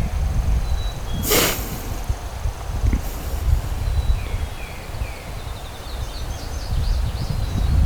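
Wind rumbling on the microphone in an open field, with small songbirds chirping. A brief sharp burst of noise about a second and a half in.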